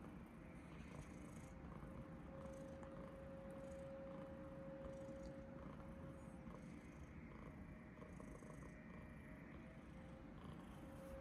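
Long-haired tabby cat purring steadily, a low continuous rumble.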